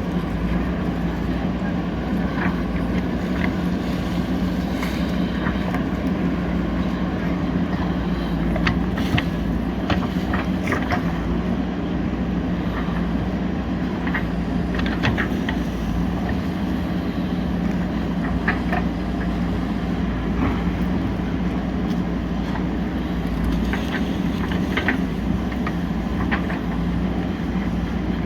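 JCB 3DX backhoe loader's diesel engine running steadily under work, with scattered sharp clanks and knocks throughout.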